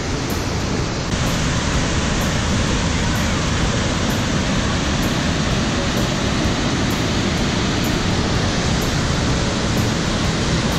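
Montmorency Falls rushing: a loud, steady, even noise of heavy falling water, a little brighter from about a second in.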